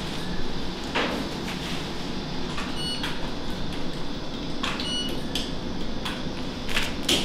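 Steady background hum of equipment and ventilation with a few short clicks and brief metallic clinks, the sound of instruments being handled.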